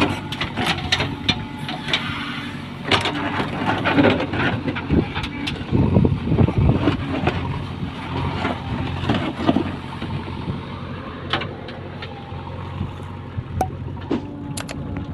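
An engine running steadily under frequent sharp clanks and knocks of building work, busiest in the first half and thinning out later.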